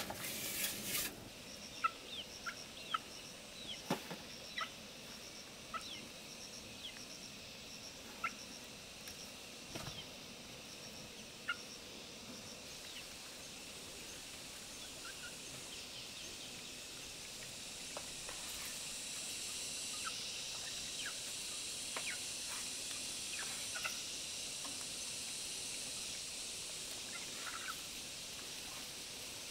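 Farmyard fowl giving short, scattered calls over a steady high insect buzz that grows louder about halfway through. A few sharp knocks come in the first few seconds.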